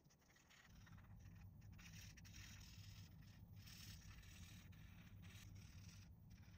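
Near silence: faint room tone with a low hum that comes in just under a second in.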